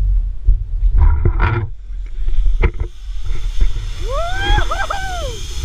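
A zipline rider yelling as he sets off, long cries that rise and fall in pitch starting about four seconds in, over wind rushing across the microphone; a few knocks from the gear come first.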